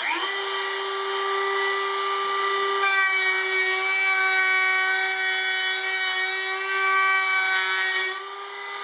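Dremel rotary tool with a 90-degree carbide burr spinning up and running with a steady high whine. From about three seconds in, the burr cuts a chamfer into the edge of a steel blade's pocket and adds a grinding rasp, which eases near the end as the cutter comes off the work and runs free.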